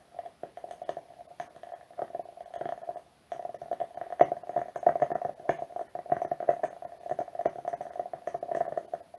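Wood wick candle burning with a dense, rapid crackle of small pops, stopping briefly about three seconds in.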